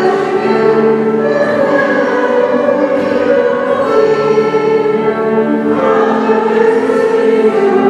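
A choir singing with long held notes that change pitch every second or so.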